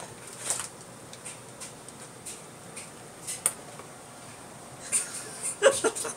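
Cats pouncing and pawing after a laser dot on carpet and a cardboard box: scattered light taps and soft clicks, with a quick run of sharper taps near the end.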